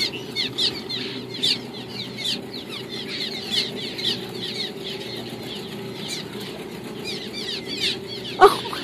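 A colony of swallows calling around their mud nests on a cliff: a dense, continuous chatter of short, falling chirps, over a steady low hum. A brief louder sound comes near the end.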